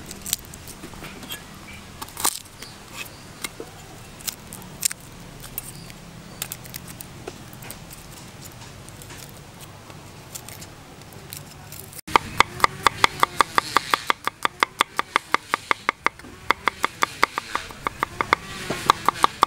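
Garlic cloves being peeled by hand, with scattered small crackles and clicks of the papery skins. About two-thirds of the way in, a cleaver starts chopping garlic on a wooden cutting board in quick, even knocks, about six a second, with one short pause.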